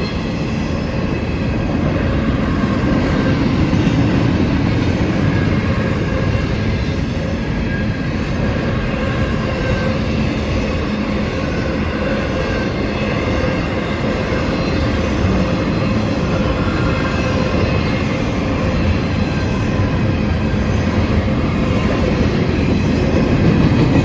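CSX intermodal double-stack train's cars rolling past at speed: a loud, steady rumble of steel wheels on the rails, with faint steady ringing tones above it.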